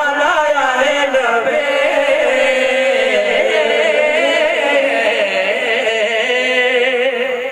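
Men singing a naat, an Urdu/Punjabi devotional chant in praise of the Prophet, into microphones, in long held notes that waver and bend.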